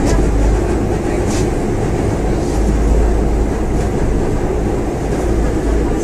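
Moscow monorail car in motion, heard from inside the carriage: a steady low rumble of the rubber-tyred train running along its beam.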